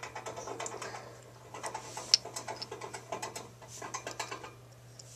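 Small plastic parts clicking and rattling as Beyblade spinning tops and their pieces are handled, with one sharper click about two seconds in.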